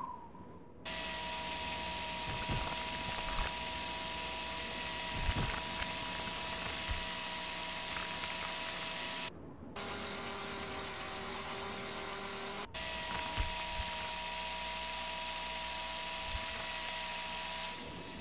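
Designed sound effect of a Mars Science Laboratory rover mechanism whirring steadily with a hiss, with a few soft thumps in the first seconds. About nine seconds in it cuts off and a lower-pitched whir runs for about three seconds, then the first whir resumes.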